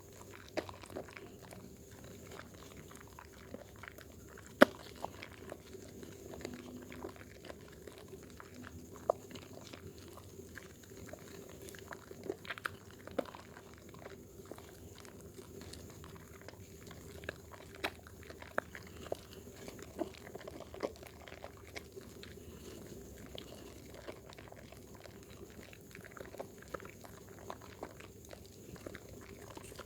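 Wet Dermythol bar soap being lathered by hand: irregular squelching and crackling of foam with scattered sharp clicks, one much louder than the rest about four and a half seconds in.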